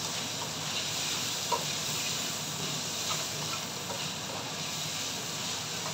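Chopped bacon sizzling in a frying pan with a steady hiss, with a few short taps and scrapes of a plastic spatula against the pan as it is stirred.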